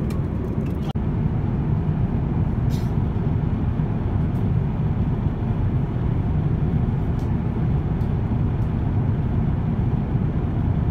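Steady low rumble of an Airbus A350-1000 passenger cabin in cruise: engine and airflow noise, with a few faint clicks.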